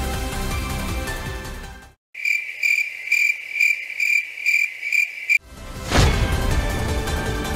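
Background music cuts out about two seconds in and a cricket-chirping sound effect takes over for about three seconds, a high chirp repeated about twice a second, the stock 'crickets' gag for an awkward pause. The music then comes back with a brief whoosh near the end.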